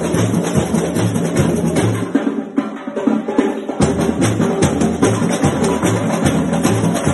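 Brazilian samba percussion (batucada): deep bass-drum beats about twice a second under fast, dense strokes of higher drums and wood-block-like percussion. About two seconds in the deep beats drop out for under two seconds, then return with a hit.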